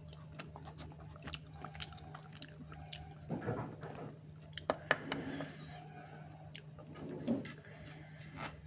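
A person chewing and biting food close to the microphone, with wet smacking and clicking mouth sounds that come in several louder clusters. A steady low hum runs underneath.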